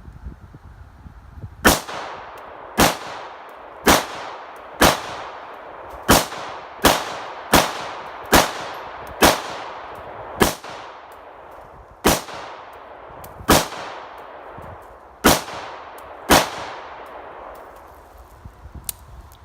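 An AR-15 rifle in .223/5.56, fitted with an Anderson Manufacturing no-rise muzzle brake, firing about fourteen semi-automatic shots. They come roughly one a second, with a few longer pauses, and each leaves an echo trailing off behind it.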